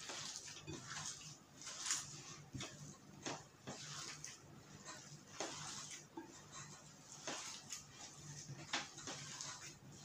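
Gloved hand kneading and squeezing raw minced meat with rice and carrot in a glass bowl: soft, irregular squelching.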